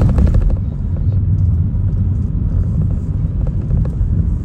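Car driving: a steady low rumble of engine and tyre noise heard from inside the cabin. A brief pitched sound comes right at the start.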